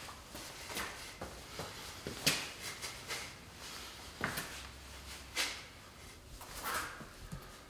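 Short, sharp sounds of a man shadowboxing, coming irregularly about once a second, the loudest about two seconds in.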